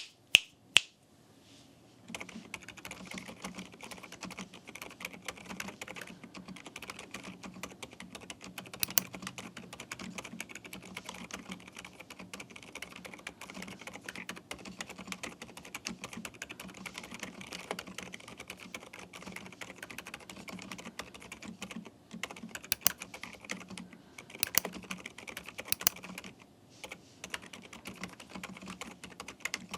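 Typing on a Gamakay TK75 V2 mechanical keyboard fitted with silent switches: a steady run of soft, muted keystrokes starting about two seconds in, with a few sharper, louder strikes here and there.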